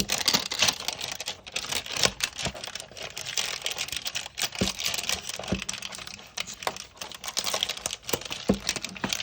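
Plastic foil trading-card pack wrapper crinkling with many small crackles and clicks as it is cut and pulled open.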